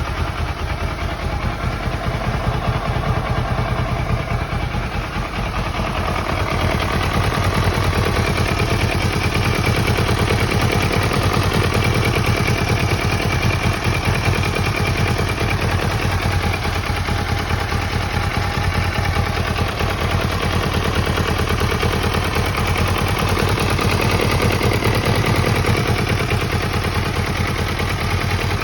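Kawasaki ER-6n's parallel-twin engine running, with a rapid clattering tick over the engine note that the owner calls an abnormal noise from the engine.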